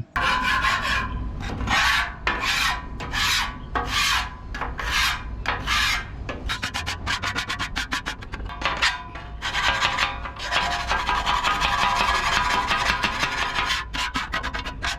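Scraper scraping the hot steel top of a 28-inch Blackstone griddle to clear rust, in repeated strokes. The strokes come about two a second at first, quicken after about six seconds, and run together into a steady rasp near the end.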